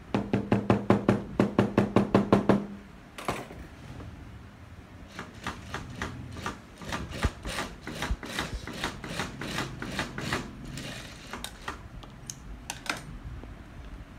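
A hand hammer beating a glued leather seam flat on the wooden worktable: a rapid, loud run of blows, about six a second, for nearly three seconds. After a short pause, a Singer industrial sewing machine stitches the leather panels in a longer run of quieter, uneven clicks.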